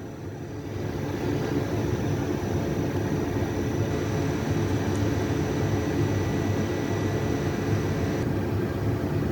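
Steady low rumbling background noise with a few faint, steady high tones running through it.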